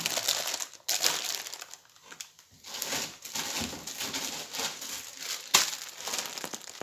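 Plastic wrapping crinkling and rustling as plastic-wrapped spools of cord are handled, with one sharp click about five and a half seconds in.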